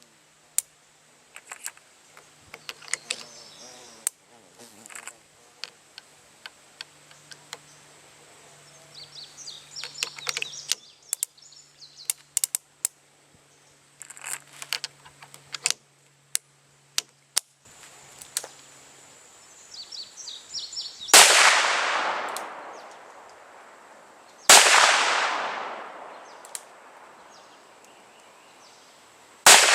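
Small metallic clicks and rattles of the revolver being handled, then three shots from a Ruger Super Blackhawk .44 Magnum single-action revolver firing Hornady 225-grain FTX LeverRevolution loads, about three and five seconds apart. Each shot is very loud, with a long echoing tail.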